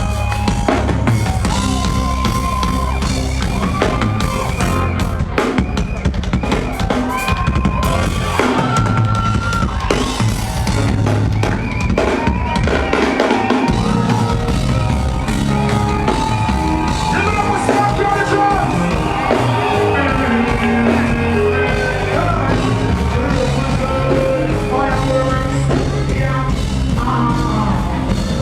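A live band playing reggae/dancehall: drum kit and bass keep a steady groove under a lead melody with bending, sliding notes.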